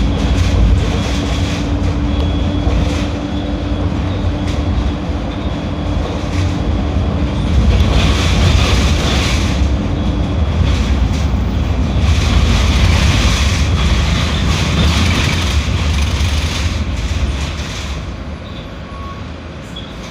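Mercedes-Benz OF 1721L BlueTec 6 bus running: a continuous deep diesel rumble with rattling noise, a steady tone over it through the first half. The sound gets quieter near the end.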